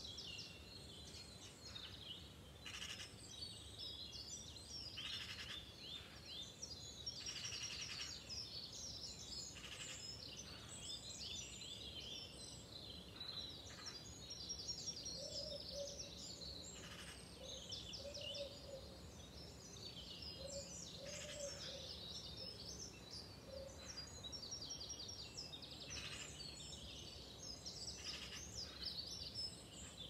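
Dawn chorus of several birds singing at once: many overlapping high chirps, trills and twittering phrases. A few short low notes repeat in groups through the middle, over a steady low background rumble.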